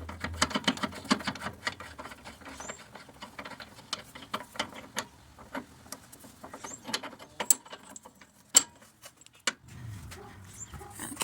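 Tools and small objects being handled and moved about while rummaging through garage cabinets: irregular clicks, knocks and light rattles, with one sharp knock about three quarters of the way through.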